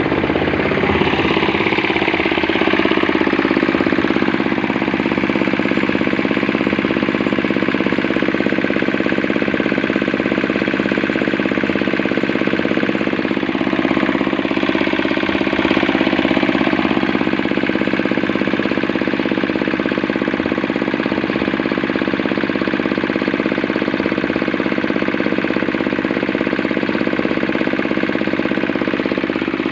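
8 hp diesel engine of a cement mixer running steadily at a constant speed.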